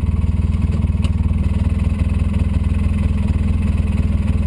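Polaris RZR 800 side-by-side's twin-cylinder engine running steadily at an even, unchanging speed, heard from inside the cab.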